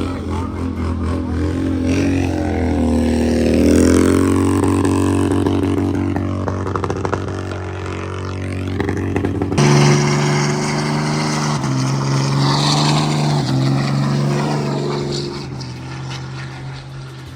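Car engine running and revving, its note rising a couple of seconds in. About halfway through it changes abruptly to another engine note that steps in pitch a few times, then fades away near the end.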